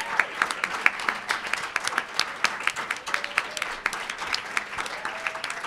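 A roomful of people applauding, many hands clapping in a dense, steady patter.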